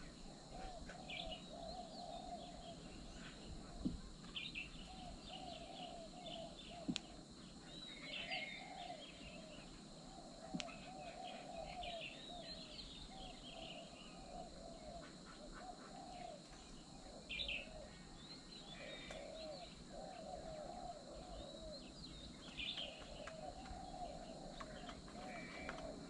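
Several birds chirping and calling all through, repeated low warbling chirps overlapping higher, squeaky twitters. A few sharp clicks stand out, about four, seven and ten seconds in.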